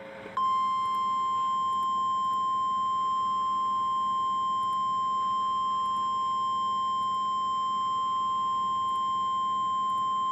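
NOAA Weather Radio 1050 Hz warning alarm tone: a single steady, loud pure tone held for about ten seconds, starting about half a second in and cutting off abruptly near the end, sent to switch on weather radio receivers ahead of a new warning.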